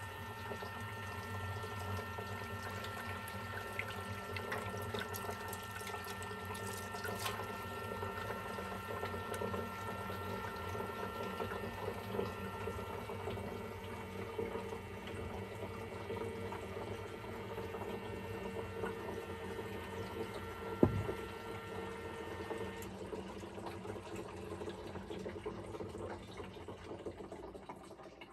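Small electric water pump running steadily with a hum, while tap water runs into a sink. One sharp knock comes a little before three-quarters of the way through.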